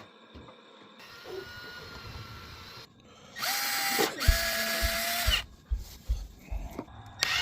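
Cordless drill driving a long screw through a door hinge into the wall stud, so it grips where the old screw holes are stripped out. The motor runs briefly and softly, then runs loud and steady for about two seconds before cutting off, and starts up again near the end.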